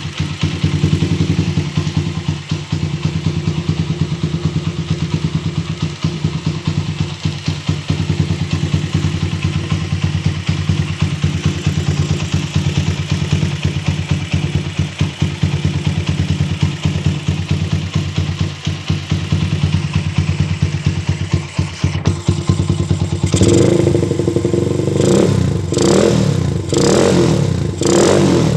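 Honda GL-series single-cylinder four-stroke motorcycle engine running through an aftermarket CTS exhaust. It idles steadily with a fast pulsing beat, then is revved in about four short blips near the end.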